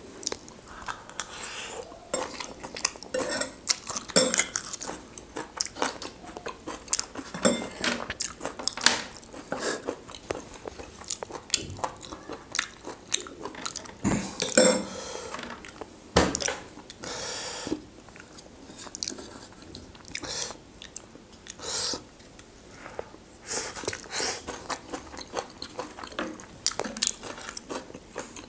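Close-up eating sounds: chewing and biting on river mussels and their chilli topping, with many short sharp clicks and clinks of the shells and dishes throughout.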